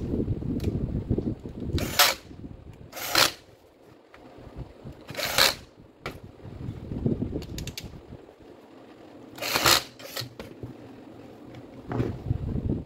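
A Makita M8700 rotary hammer drill being handled on a workbench with gloved hands, its motor not running. There are low knocks and rubbing as it is turned and shifted, and about four short scraping hisses as it slides or rubs against the bench.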